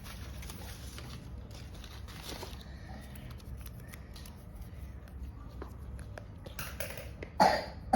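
Paper being handled: light rustles and small clicks over a steady low hum, with one loud, sharp sound near the end.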